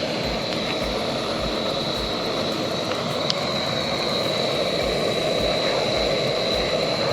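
Portable gas camping stove burner running: a steady rushing hiss with a faint high whistle on top, as a meal is being heated.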